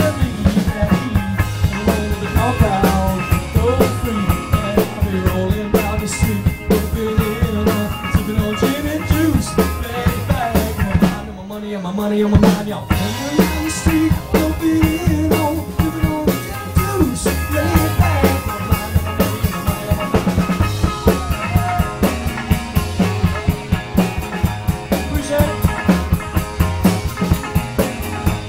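Live band music, loud, with a drum kit keeping a steady beat over bass and a wandering melodic line; the low end drops out briefly about twelve seconds in before the beat comes back.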